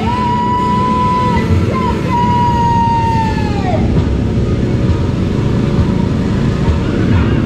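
Small youth ATV engines running, one of them revved high and held steady twice, its pitch falling off as it lets off a little under four seconds in, over the rumble of the other quads.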